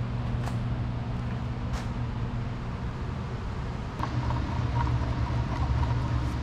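A steady low mechanical hum, with a few faint light knocks.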